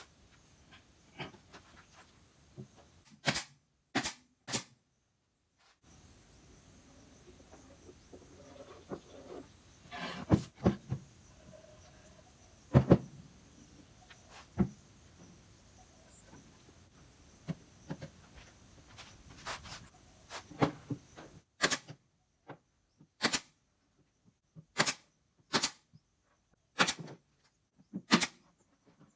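Irregular sharp knocks and clicks of tools and parts being handled while a subwoofer cabinet is put together, with one loudest knock about halfway through. In the last third the clicks come more evenly, roughly one a second.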